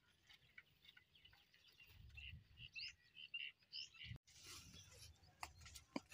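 Faint chirping from small birds: a run of short, high chirps, some sweeping upward, about two to three seconds in, over a low rumble.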